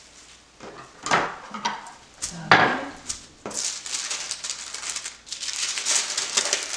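Two knocks as the plastic-wrapped loaf is handled and set down, the second the louder, then paper crinkling and rustling as a sheet of paper is folded around the loaf.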